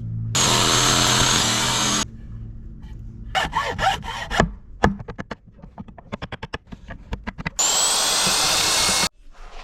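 A power tool runs in two bursts of about a second and a half each, a high motor whine over a harsh cutting noise, the second burst winding up in pitch as it starts. Between the bursts comes a quick run of sharp knocks and clicks, about four or five a second.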